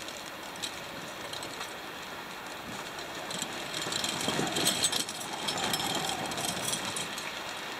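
Two-way handheld radio hissing with static. About three and a half seconds in, a crackling, garbled burst comes through for a few seconds as another radio keys its mic, too broken to make out.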